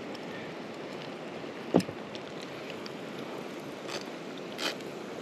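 Metal spoon and knife clinking and scraping against a cast-iron skillet while picking cooked trout off the bones, with one sharp clink a little under two seconds in and a few lighter scrapes near the end. Steady outdoor background hiss throughout.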